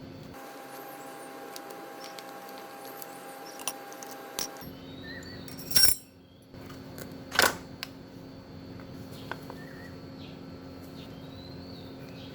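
Two loud sharp clacks about a second and a half apart, with a few lighter clicks around them, over a steady background hum.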